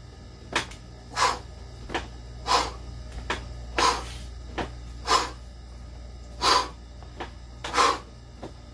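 A man blowing out a sharp breath on each rep of incline dumbbell presses: six puffs about 1.3 seconds apart, each with a quick, fainter intake of breath between. A steady low hum runs underneath.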